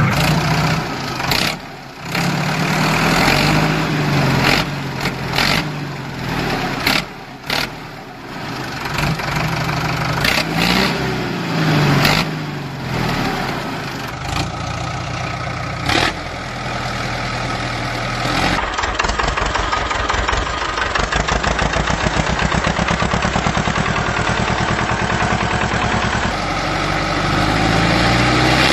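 A small motor running, its pitch dipping and rising, with many sharp clicks and knocks; later it becomes a steady, fast-pulsing buzz.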